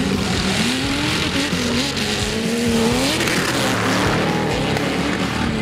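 Competition off-road jeep engine revving hard, its pitch rising and falling several times as it is driven on and off the throttle, with tyre and dirt noise swelling about three seconds in.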